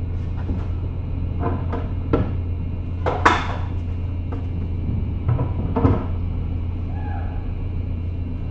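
Steady low drone of the docked ferry's machinery, with a few scattered metallic knocks and clanks from the car deck and ramp, the loudest about three seconds in.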